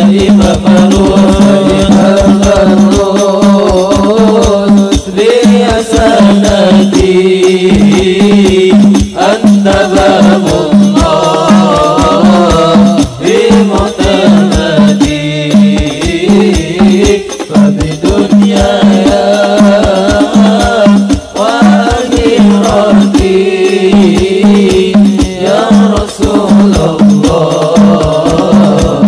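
A group of male voices singing an Islamic devotional song together, accompanied by a hadrah ensemble of rebana frame drums and a large hand drum beating a fast, steady rhythm.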